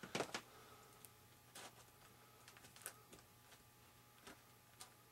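Near silence with a faint steady hum and a few faint, scattered clicks and taps from small parts being handled.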